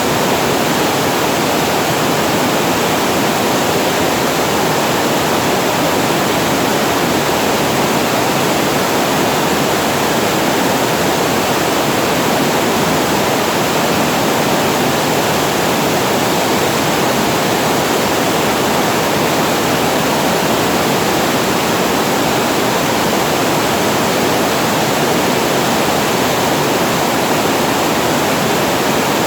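Water spilling over a reservoir weir and falling to the pool below: a steady, unbroken rush of falling water with a deep, full tone.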